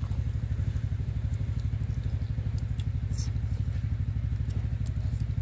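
A small engine running steadily with a fast, even putter, and a few light clicks of clam shells being handled.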